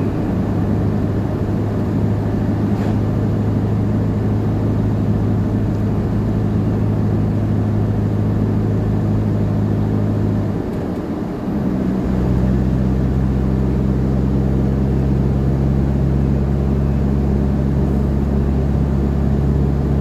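A 4x4's engine droning steadily while driving. About eleven seconds in the drone dips briefly and comes back at a lower pitch, as with a gear change.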